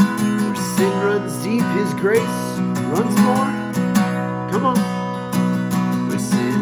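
Instrumental worship music: acoustic guitar strumming over sustained chords, with a melody of sliding notes.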